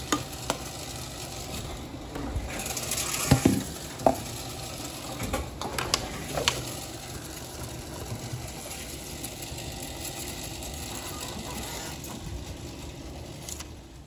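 Reverse vending machine for deposit bottles and cans running with a steady hum while empties are pushed in, with a string of knocks and clunks as the containers drop in and are carried away. The loudest clunks come a little over three seconds in and about four seconds in.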